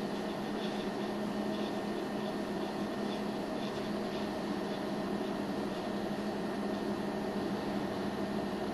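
Steady low hum with an even hiss underneath, the recording's background noise, with no other event.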